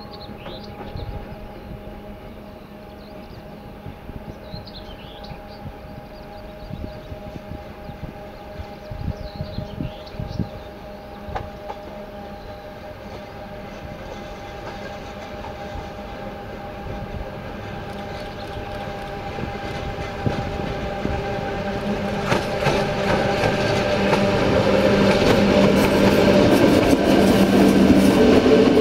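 Czech class 113 electric locomotive hauling a passenger train, approaching along the track and growing steadily louder as it nears. Steady motor hum and wheel clatter build up until it passes close by near the end.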